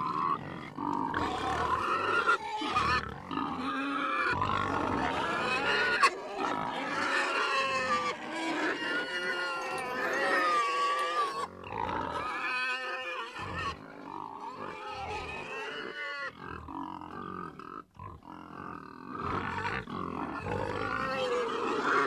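Several pigs grunting and squealing, their calls overlapping almost without a break, with a few short lulls.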